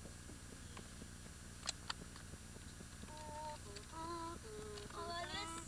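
A person humming a tune in held notes that step up and down, beginning about three seconds in. Before it there is only a steady low hum, with two short clicks.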